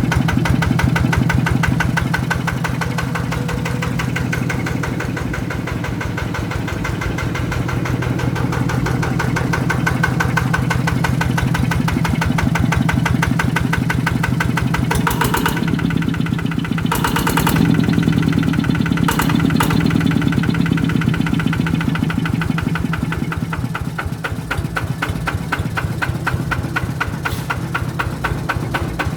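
Yanmar 120 DI single-cylinder diesel engine idling with a steady, rapid knock of firing strokes. Midway there are a few short hissing bursts, and the engine gets a little louder for a few seconds.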